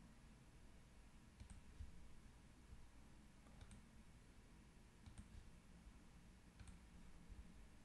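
Faint computer mouse clicks, four single clicks about a second and a half apart, over near-silent room tone.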